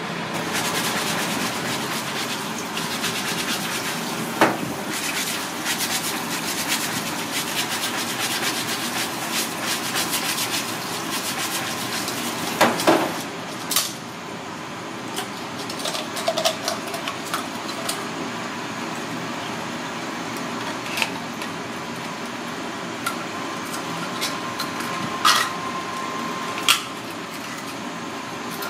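Water running from a tap into a stainless steel sink while an ark clam (akagai) is pried open with a thin metal knife. The blade clicks and scrapes against the ridged shell: rapid clicks in the first half, a few sharper separate clicks later.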